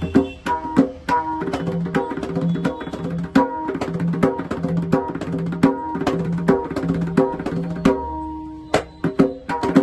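Pakhawaj tuned to D/D# being played: a quick run of ringing pitched strokes over a deeper bass stroke that repeats about twice a second. About eight seconds in, one stroke is left to ring on before the playing picks up again.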